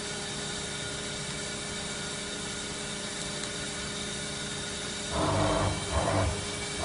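Kitamura Mycenter 3X CNC vertical machining center running under power: a steady hum with several fixed tones, then a few short, louder bursts of mechanical movement in the last two seconds.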